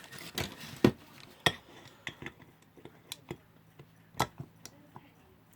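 Small metal clock parts clicking and clinking as they are handled and fitted on a bench: scattered sharp taps, the loudest a little under a second in, at about a second and a half and just past four seconds, growing sparser toward the end.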